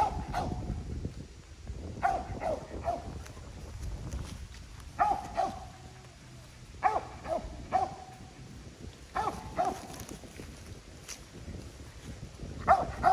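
Hunting dog barking at a tree, in short bursts of two or three barks about every two seconds: a dog barking treed.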